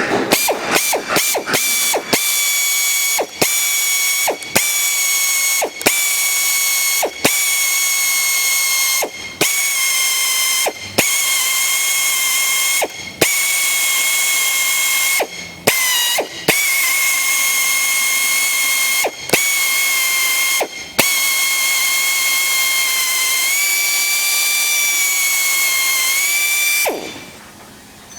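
Geared mechanism spinning with a steady high whine, broken by a dozen or so brief stops and clicks. The pitch dips slightly a couple of times and the sound cuts off near the end.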